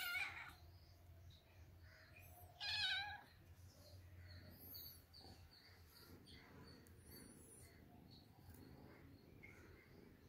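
A cat meowing twice: one call at the very start and a second, wavering call about three seconds in, each under a second long.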